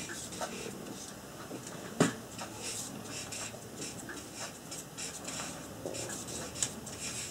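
Felt-tip marker scratching and squeaking across paper in short strokes as letters are written. A single sharp knock about two seconds in.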